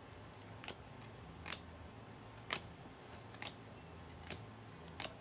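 Baseball trading cards flicked one at a time off the front of a hand-held stack, each giving a faint sharp card click, about one a second.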